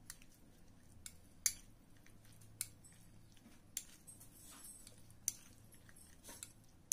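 A spoon stirring ground carrot and tomato sauce in a glass bowl: faint wet squishing with sharp, irregular clinks of the spoon against the glass, about one a second.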